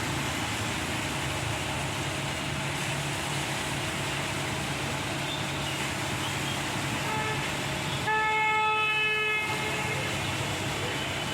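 Diesel engine of a concrete transit mixer running steadily. About eight seconds in, a vehicle horn blows once for a little over a second.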